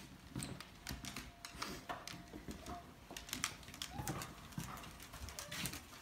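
Footsteps and claw clicks on a hard floor as a person and a cat walk, with a short cat meow about four seconds in.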